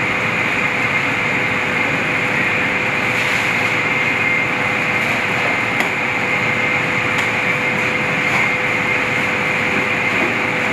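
Steady rushing noise of a commercial kitchen's extraction hoods and ventilation fans, with a constant hum running through it. A few faint light clicks sound over it.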